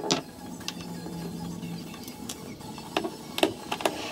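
A handful of sharp clicks and light knocks from hand tools and the metal edge trim of a plywood shipping crate being worked loose, two at the start and a cluster about three to four seconds in.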